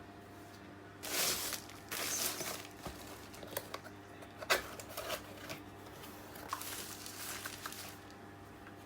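Packaging being handled and opened, with rustling and crinkling in two longer stretches, about a second in and again near the end, and scattered clicks and taps between.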